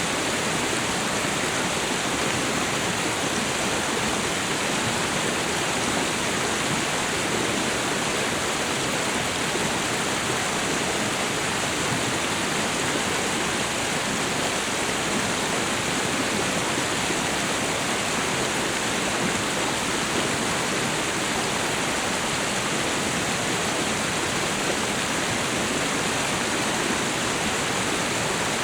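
Waterfall and river water rushing in a steady, even noise with no breaks or separate splashes.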